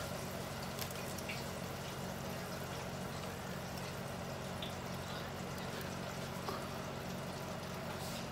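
Steady low hum with a faint hiss and a few soft clicks: the background of a kitchen room.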